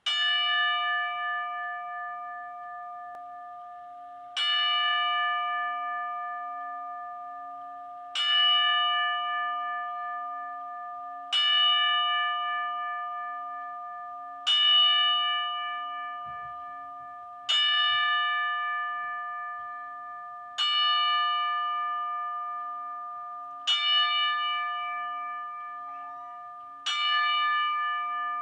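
A single bell struck nine times, a strike about every three seconds, each ringing out and fading before the next: the tolling of a ten-bell salute, the wrestling tribute for someone who has died.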